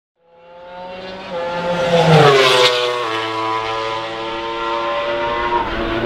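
MotoGP racing motorcycle's 1000 cc four-stroke engine at high revs. It fades in and is loudest about two and a half seconds in, where its pitch falls as it goes by. It then holds a steady note, with drops in pitch about three seconds in and again near the end.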